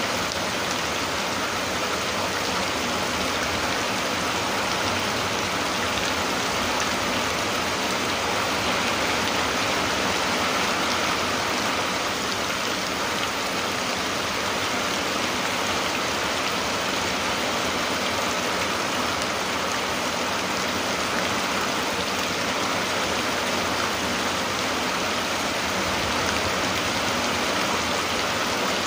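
Rain falling steadily, an even hiss without breaks or changes.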